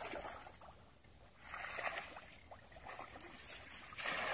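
Water splashing in a shallow pond in three bursts, about one every two seconds, the last the loudest.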